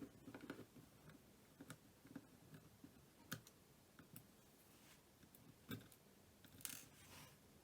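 Faint, scattered clicks and ticks of a small Phillips screwdriver on the screws of a Samsung C3590 flip phone's plastic housing as the screws are taken out, with a short scrape near the end.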